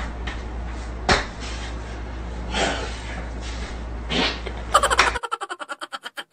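A fart aimed at a bottle cap: two short noisy bursts over a steady room hum, with a click about a second in. Near the end comes a quick run of fading pulses.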